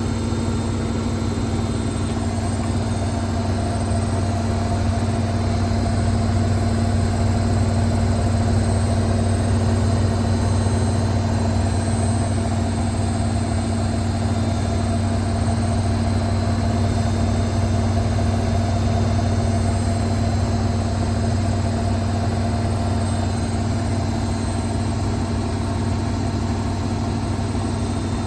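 Hotpoint WML540 Aquarius washing machine on its final spin, the drum spinning steadily at speed with a steady motor hum and whine, heard straight through the open door.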